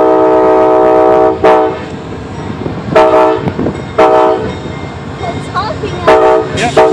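Multi-chime air horn of an Amtrak GE P42DC Genesis passenger locomotive sounding a chord of several tones: one long blast for about the first second and a half, then five short toots. It is a horn show played for railfans.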